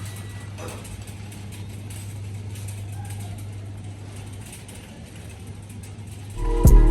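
Car running with a steady low hum, heard from inside the cabin. Music starts near the end.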